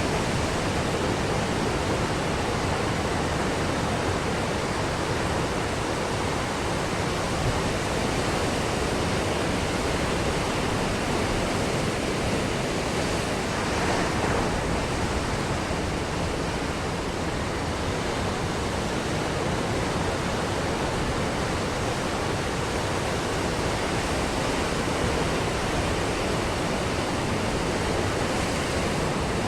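Ocean surf breaking on a beach: a steady, even rush of waves with no distinct crashes standing out.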